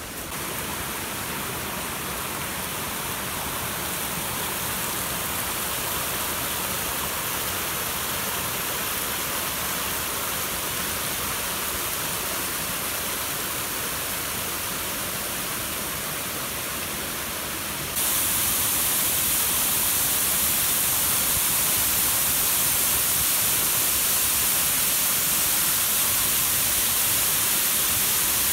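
Steady rush of falling water from Stiles Falls, a 40-foot waterfall on Purgatory Creek, and its cascades. About two-thirds of the way in it jumps suddenly louder and hissier, then holds steady.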